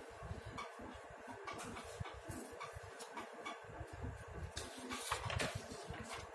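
Sheets of paper rustling and sliding as a flyer is pulled off a clipboard, loudest about four and a half to five and a half seconds in. Underneath, a faint regular ticking, about two ticks a second.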